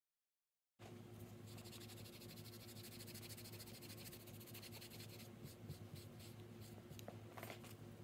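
Faint, fast scratchy rubbing as a metal nail-stamping plate is wiped clean, with a few firmer strokes near the end. It cuts in from silence about a second in, over a steady low hum.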